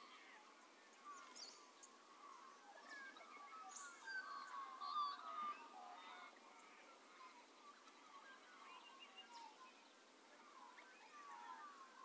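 Faint dawn chorus of many birds: short overlapping chirps and warbled calls, busiest and loudest about four to five seconds in.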